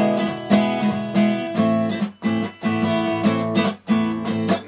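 Acoustic guitar strumming chords in a steady rhythm, about two strums a second, in an instrumental break of a song with no singing.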